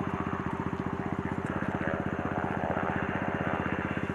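Engine idling steadily, with a rapid, even pulse and a low hum.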